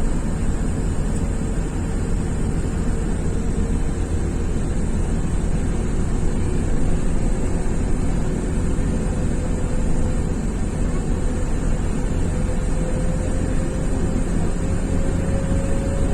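Strong wind blowing over floodwater, with gusts buffeting the microphone in a loud, steady, deep rumble. Under it, a faint steady hum climbs slowly in pitch.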